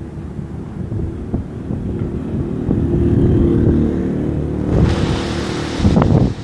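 Strong wind buffeting the microphone with a low, heavy rumble, a faint steady tone in the middle, and a louder rushing hiss from about five seconds in.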